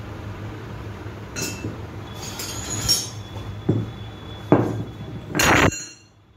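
Sharp metallic clanks and knocks of a sledgehammer and steel tools on a concrete workshop floor: four separate strikes, then a longer rattling clatter near the end, over a steady low hum.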